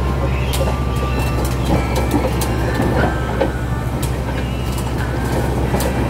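Komatsu D65P-12 bulldozer's diesel engine running with a steady low drone while its steel crawler tracks clank and click irregularly as the machine travels over gravel.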